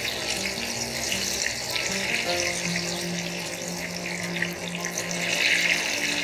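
Masoor dal badeel pieces deep-frying in hot oil in a kadai: a steady bubbling sizzle, louder for a moment about five seconds in. Soft background music with held notes plays underneath.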